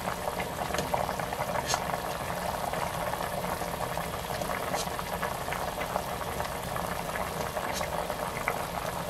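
Beef short ribs boiling hard in a stainless steel stockpot: steady bubbling, with a few light clicks of a metal ladle against the pot as the fat is skimmed off the surface.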